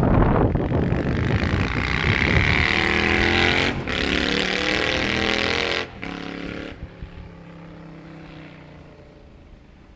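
Honda Steed bobber's V-twin engine running loud under acceleration as the motorcycle rides past, with two brief breaks in the sound. It then runs on much more quietly and fades as the bike moves away.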